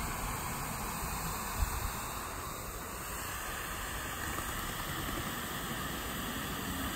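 Bee-shaped lawn sprinkler on a garden hose spraying a fine mist, a steady hiss of water. A brief low thump comes about one and a half seconds in.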